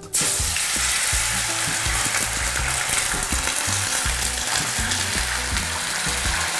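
Tomato passata poured into very hot oil in a saucepan, setting off a loud, steady sizzling and spattering that starts suddenly just after the beginning. The oil is hot enough that the sauce crackles and spits; letting the oil cool a little first would stop the spattering.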